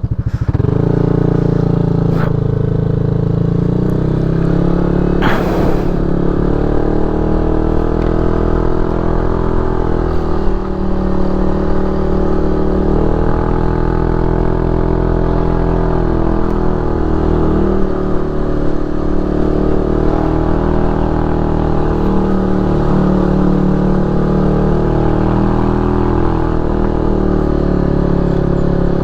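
Motorcycle engine running steadily under way, its pitch rising and falling a little as the speed changes, with one brief sharp noise about five seconds in.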